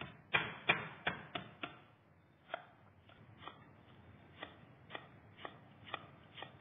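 Kitchen knife striking a wooden cutting board as lemongrass stalks are crushed and cut. There are five quick, heavy blows in the first second and a half, then lighter, evenly spaced chops about two a second.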